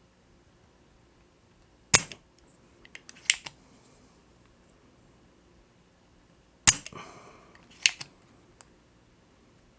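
A spring-loaded solder sucker (desoldering suction pump) firing twice with a sharp snap, each snap followed about a second later by a lighter click. It is drawing melted solder out of the joystick module's through-hole joints on the controller board.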